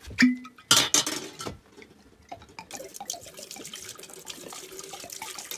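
A couple of sharp clattering knocks about a second in, then liquor pouring from a glass bottle into a deep fryer's metal pot, splashing and dribbling steadily.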